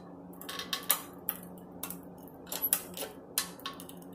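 A shop press loading a front wheel bearing to push it out of its knuckle: a run of irregular sharp clicks and ticks, over a steady low hum.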